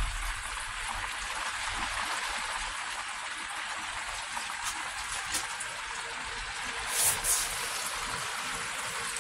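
Water running and trickling into clear DIY pond filter tubes packed with filter media as the newly started pump fills them, a steady rush. Two short clicks about seven seconds in.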